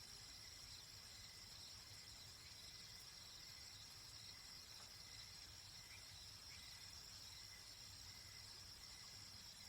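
Faint, steady, high-pitched chorus of calling animals, with a couple of brief chirps about six seconds in.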